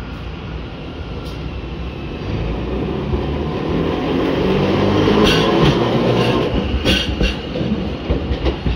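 Toyohashi city streetcar no. 3502 passing close by: a low rumble and motor hum that swell as it draws level, peaking about halfway through, with a few sharp clicks from the wheels on the track as it goes past.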